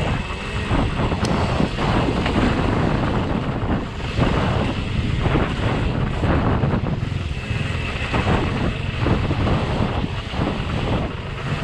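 Wind buffeting an action camera's microphone: a loud, rumbling rush that surges and dips unevenly.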